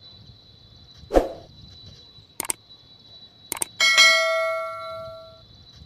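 Subscribe-button animation sound effects: two sharp mouse clicks, then a notification-bell ding that rings and fades over about a second and a half. A single thump comes about a second in, and a faint steady high tone runs underneath.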